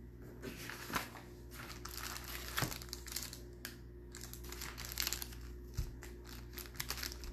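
Crinkling and rustling of packaging wrap handled off camera, with several sharp crackles, over a faint steady room hum.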